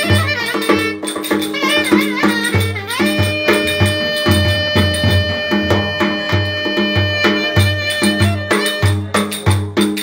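Turkish folk dance music (oyun havası): a melody instrument plays a bending, ornamented line, then holds one long steady note for about four seconds in the middle, over a steady drum beat about twice a second with rattling percussion.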